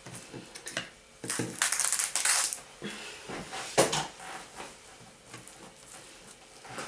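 Kitchen handling noises: about a second of loud rustling, then a single sharp knock a little after halfway.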